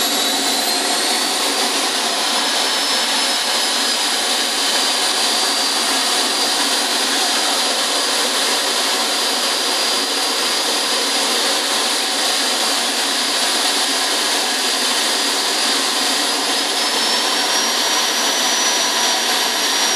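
Small model jet turbine engine running steadily with a high whine over a broad rush. The whine rises in pitch in the first couple of seconds and again near the end as the turbine is throttled up.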